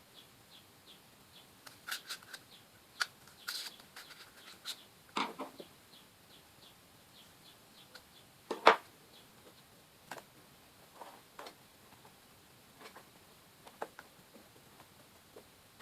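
Scattered taps, clicks and rustles of cardboard and craft materials being handled and worked, with one louder knock nearly nine seconds in. A faint quick ticking runs through the first six seconds.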